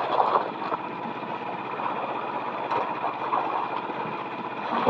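A small fishing boat's engine idling steadily, with a few light knocks over the hum.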